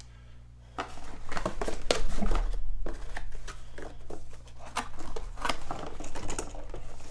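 Packaging being handled during unboxing: rustling and crinkling with many irregular short clicks and taps, starting about a second in.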